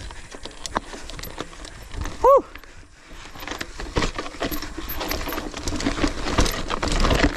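A mountain bike rattling and clattering over a rough, rocky trail, with many sharp knocks from the bike and tyres hitting stones. About two seconds in, a short, loud tone that rises and falls stands out above the rattle.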